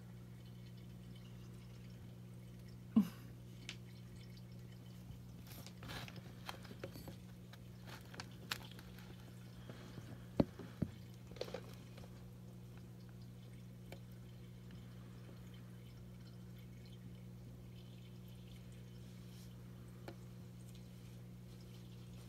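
Quiet room with a steady low electrical hum and a scattering of small, sharp clicks and ticks, the clearest about three seconds in and about ten seconds in.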